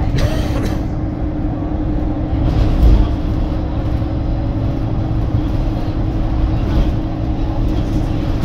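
Alexander Dennis Enviro 300 single-deck bus driving, heard from inside the cabin: a steady engine drone over road rumble, with a low thud about three seconds in.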